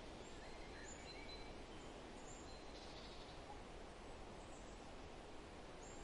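Faint steady ambient hiss with a few faint, short, high-pitched bird chirps scattered through it.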